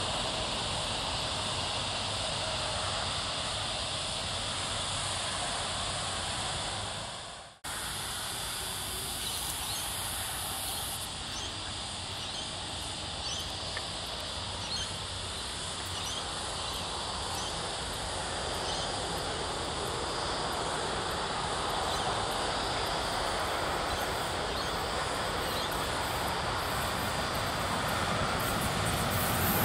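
Steady outdoor background hiss by a railway line, with faint high chirps, probably birds or insects. The sound fades out and cuts back in about seven and a half seconds in. In the last few seconds the noise grows as an approaching train starts to be heard.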